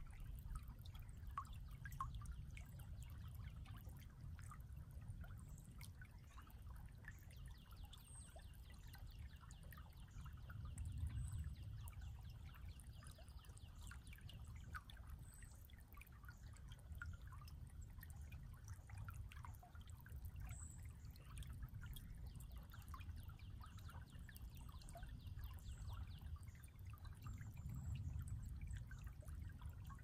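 Small creek babbling and trickling steadily over stones, quiet, with a few faint high bird chirps now and then.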